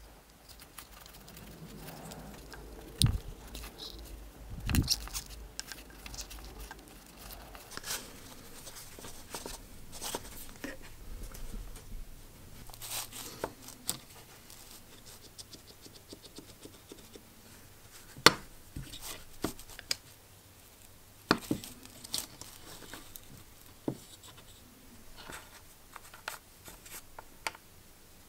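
Close handling noises from fitting a rubber cord sleeve into an opened power drill's handle: rubbing and scraping of rubber and metal, with scattered sharp clicks and knocks of small parts and tools on the bench.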